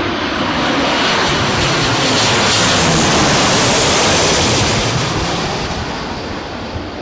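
Jet airliner passing close on approach to land, its engine noise swelling to a peak about three seconds in and then fading.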